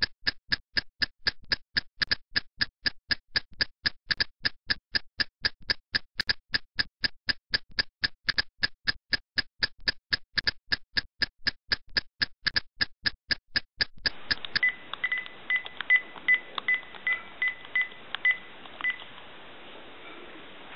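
Clock ticking fast and evenly, about four ticks a second, stopping abruptly about fourteen seconds in. Then a run of short telephone keypad beeps.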